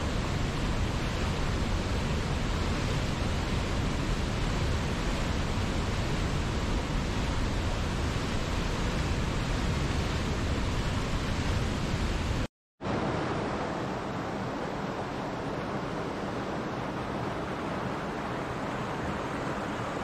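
Rushing water of a whitewater river pouring over rocks, a steady full noise with a deep low rumble. About two-thirds through it cuts out for a split second and comes back lighter, with much less low rumble, like a smaller stream splashing over stones.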